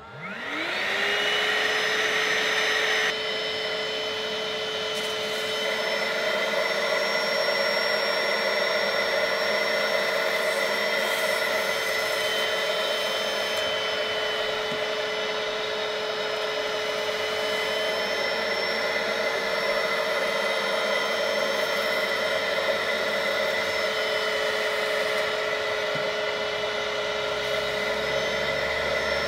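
Portable carpet and upholstery spot cleaner's motor switching on and spinning up with a rising whine, then running steadily. Its suction runs as the hand nozzle is worked over a fabric car seat. The sound is a little quieter from about three seconds in.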